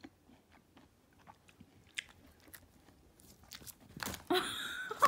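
A lop rabbit biting and chewing a piece of orange, a run of soft, crisp crunching clicks. A louder, longer noise comes in near the end.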